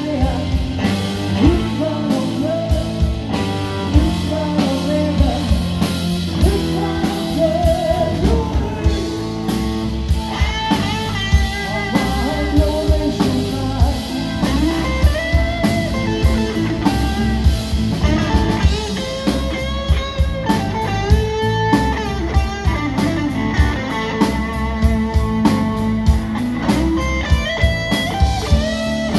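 Live blues-rock band playing at full volume: electric guitars, electric bass and a drum kit. Through the middle and later part a lead electric guitar plays a line of bent notes over the band.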